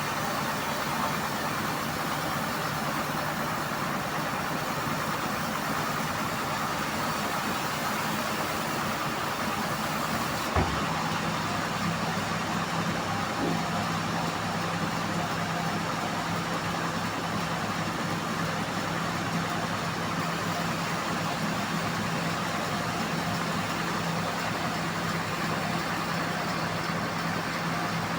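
Band-saw mill running steadily with a constant engine-like hum. A short click comes about ten seconds in, after which a steady low hum stands out more plainly.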